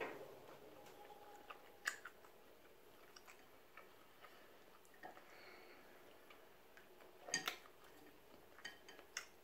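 Faint eating sounds: soft chewing, with scattered small clicks and taps as crab legs and shells are handled. Late on comes a quick cluster of louder clicks.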